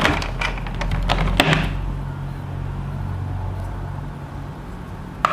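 Clicks and light knocks of plastic accessories and packaging being handled for the first second and a half, then a low steady hum.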